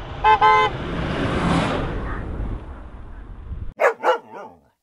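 A vehicle horn toots twice in quick succession as a truck drives past on a snowy road, followed by the rush of the truck going by. A little before the end the sound cuts off and a dog barks twice, then once more, softer.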